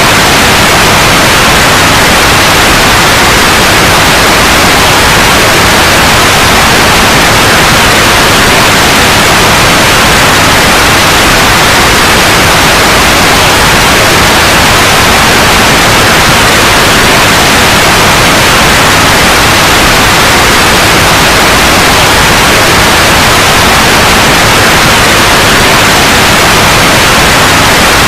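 Steady, loud white noise: a constant hiss across all pitches that does not change.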